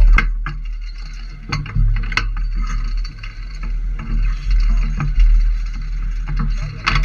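Wind buffeting the microphone of a camera riding in a Funtime Sling Shot capsule as it tumbles through the air, a low rumble that surges and fades, with scattered sharp clicks and rattles.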